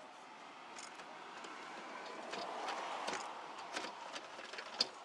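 Keys and ignition being worked in a car: a few sharp clicks, the loudest near the end, over a steady hiss that swells in the middle.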